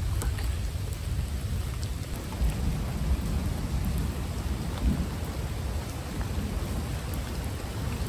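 Rain falling steadily during a thunderstorm, with a low rumble of thunder that swells and fades underneath and scattered sharp raindrop ticks.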